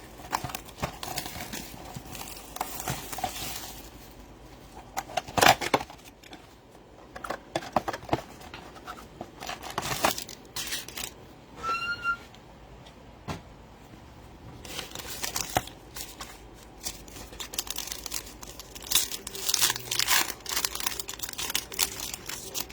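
Card-pack wrappers being torn open and crinkled in irregular bursts as a blaster box of trading cards is unpacked, with a short high squeak about halfway through.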